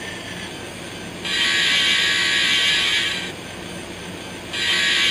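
An MRC sound decoder in an N scale Kato F7A playing its diesel air-horn sound through the tiny onboard speaker, which leaves the sound thin and high: one blast of about two seconds starting about a second in, then another starting near the end. Under it the decoder's diesel engine sound runs at a steady idle.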